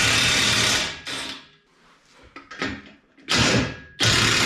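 Power wrench with a socket working the spare tire's lug nuts loose, running in four bursts: the first lasts until just under a second in, the last starts about four seconds in.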